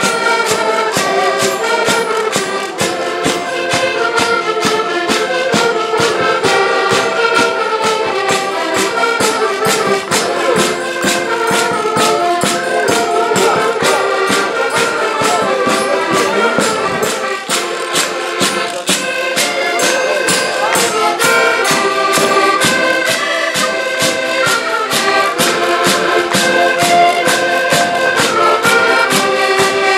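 Traditional Portuguese folk band playing a lively tune on accordions, the held reed notes carrying the melody over a fast, steady percussion beat.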